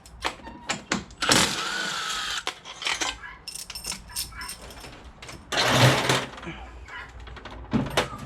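Metal battery-module hardware being handled and pulled apart: a string of clanks, clicks and scrapes, with the longest scraping clatters a little after a second in and again around six seconds in.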